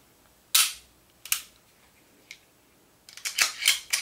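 Sharp metallic clicks of an unloaded H&K P2000SK pistol's slide and action being worked by hand: two single clicks in the first second and a half, then a quick run of clacks near the end.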